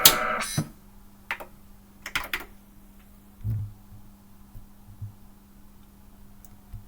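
Music cuts off about half a second in. It is followed by a few scattered sharp clicks and soft knocks over a faint steady low hum.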